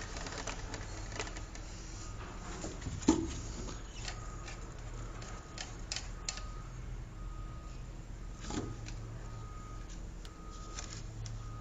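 Light clicks and knocks of plastic drain pipe and fittings being handled, with a sharper knock about three seconds in and another past the middle, over a steady low hum.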